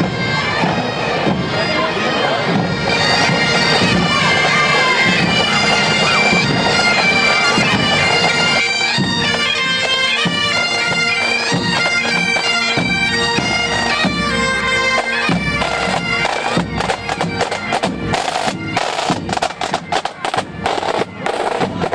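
A pipe band playing as it marches past: Highland bagpipes sound a melody over their steady drone, with snare and bass drums beating under them. In the last few seconds the drumming stands out, with rapid sharp snare strokes.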